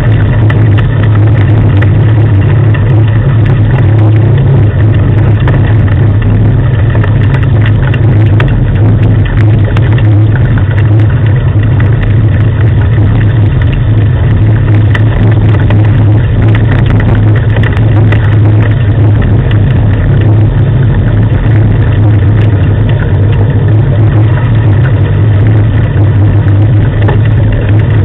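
Steady, loud low rumble of a rig being pulled along a road by a running dog team, unbroken throughout.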